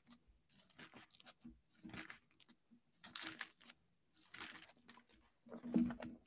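Thin Bible pages being turned: a series of faint papery rustles, about five in all, the loudest near the end.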